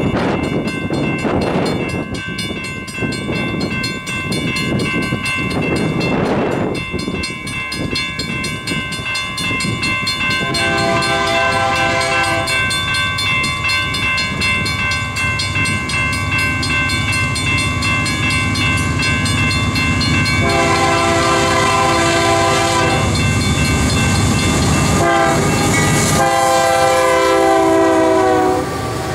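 A Union Pacific diesel freight locomotive's multi-chime air horn sounds as a heavy grain train approaches and passes, over a rising rumble of diesel engines and steel wheels on rail. The last four strong blasts, from about ten seconds in, run long, long, short, long: the grade-crossing signal. Wind buffets the microphone in the first few seconds.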